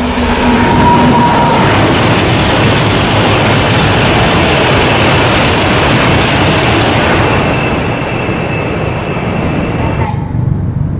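Tohoku Shinkansen E2 series bullet train passing through the station at high speed: a loud rush of air and rail noise that builds over the first second and holds steady. About ten seconds in it cuts off abruptly and gives way to a quieter low rumble.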